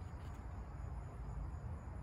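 Steady outdoor background rumble, strongest in the low end, with a faint steady high-pitched drone above it and a faint tick about a quarter of a second in.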